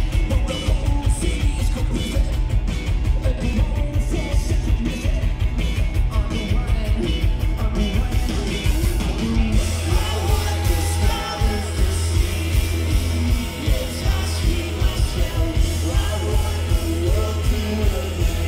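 Rock band playing live through a festival stage's PA, with drums, guitars and a sung vocal over heavy bass. About halfway through, a held low bass note comes in under the beat.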